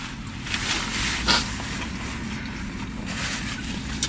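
Steady low hum inside a parked car, with faint eating and napkin rustling and one short, sharp rustle about a second in.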